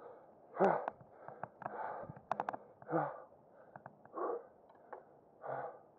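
A man breathing hard in and out, one heavy breath about every second, winded from the effort of netting a big catfish. A few short sharp clicks come in between, a cluster of them near the middle.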